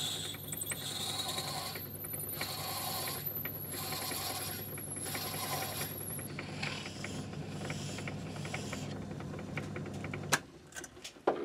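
Myford ML7 lathe running steadily while a twist drill cuts a clearance hole into a small spinning part, with a thin high whine that comes and goes about four times as the drill bites. A little over ten seconds in there is a sharp click and the motor hum stops as the lathe is switched off.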